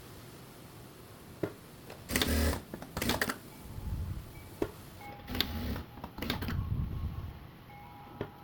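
Sewing machine stitching in several short runs, the last and longest near the end, with a few sharp clicks of handling in between.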